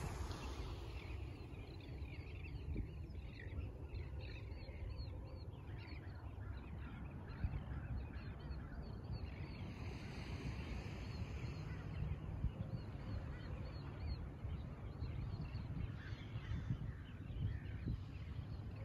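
A flock of birds calling: many short, quick calls overlapping over the low rumble of wind and surf.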